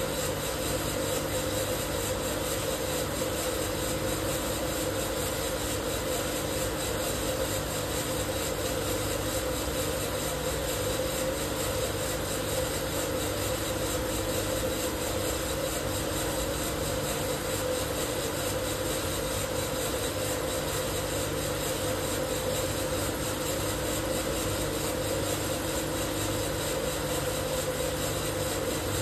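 12 kg Probat Probatone P12 Series 2 drum coffee roaster running: a continuous, even machine whir with a steady hum, and no cracking of beans.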